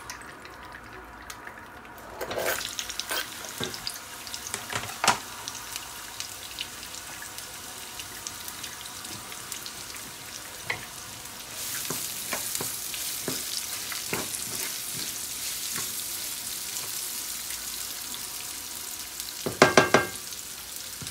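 Sliced red onion going into hot oil in a frying pan, starting to sizzle about two seconds in, then frying with a steady sizzle and scattered clicks as it is stirred with a wooden spatula. The sizzle gets louder about halfway through, and a quick run of sharp knocks comes near the end.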